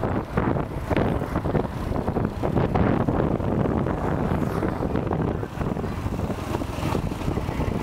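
Wind buffeting the microphone of a moving bike, a loud, gusty rush, with vehicle and road noise underneath.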